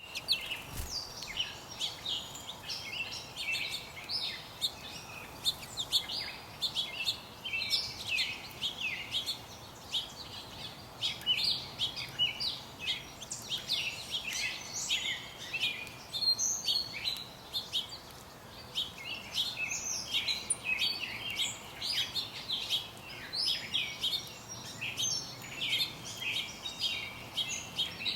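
Small birds chirping in dense, rapid, overlapping high calls that go on without a break.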